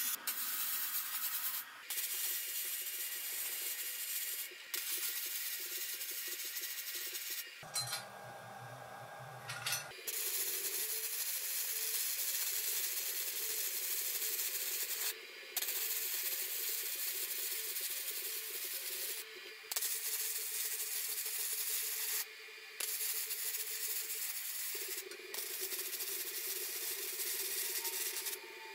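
Welding arc crackling and hissing as the steel tubes of a chassis are joined. It comes in a run of separate bursts, each a few seconds long, with short breaks between them.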